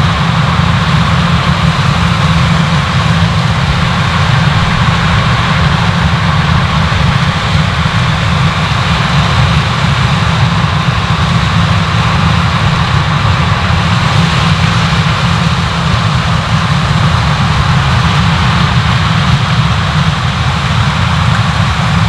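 Large farm diesel machinery at work in a corn harvest, running steadily with a deep engine drone and a continuous mechanical rush over it.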